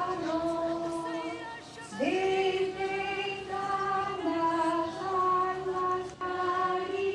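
Azorean Portuguese folk song: a woman's voice holds long notes with vibrato over instrumental accompaniment, the notes changing about every one to two seconds.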